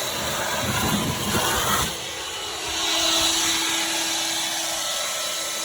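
Vacuum cleaner running, sucking debris out of a car trunk. About two seconds in the sound changes: the low rumble drops away and a steady hum remains under the rushing air.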